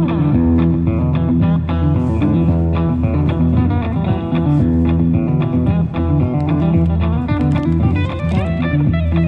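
Street musician playing guitar, picking a quick run of changing notes over a steady bass line.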